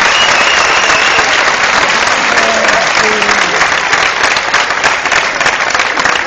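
Audience applauding, a dense wash of clapping that thins out in the last couple of seconds so that single claps stand out.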